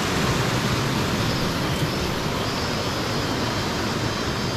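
Loud, steady rushing noise with no distinct tone or beat.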